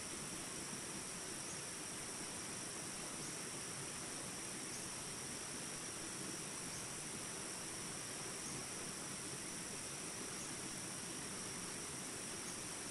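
Small rapids rushing steadily, under a constant high drone of insects, with a faint short high chirp repeating about every second and a half.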